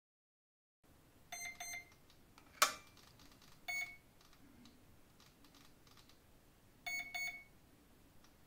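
Flycolor boat ESC giving short programming beeps through the brushless motor: a pair of beeps, a single beep, then another pair, signalling the motor-direction option and its setting. A sharp click about two and a half seconds in is the loudest sound.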